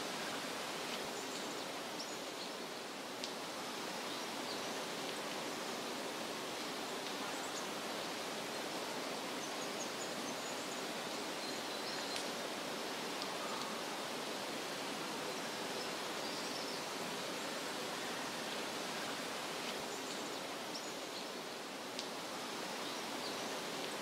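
Steady outdoor rushing noise, even and unbroken, with faint high chirps and a few small ticks here and there.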